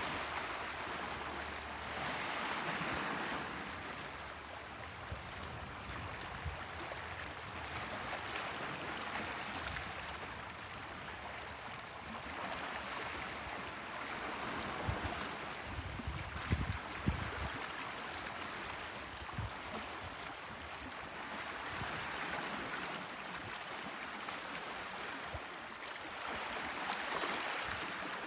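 Gentle Mediterranean waves washing onto the shore, the surf swelling and fading every few seconds. A few low thumps come about halfway through.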